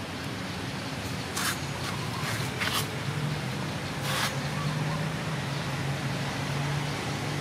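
Steady background hum of distant road traffic, with a few short hissing noises between about one and a half and four seconds in.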